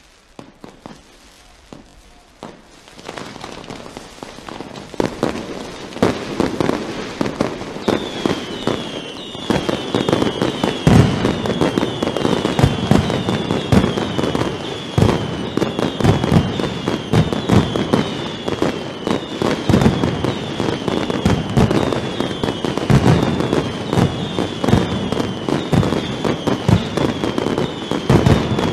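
Mascletà firecrackers going off: after a near-quiet start, sharp bangs begin about three seconds in and quickly thicken into a dense, continuous rattle of explosions. From about eight seconds in, whistling fireworks add repeated falling whistles over the bangs.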